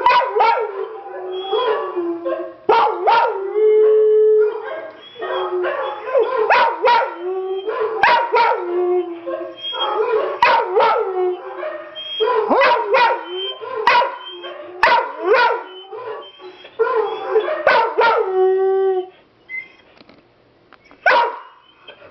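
Dog howling in long, wavering howls, mixed with many sharp barks and yips. It falls away about 19 seconds in, with one more short burst near the end.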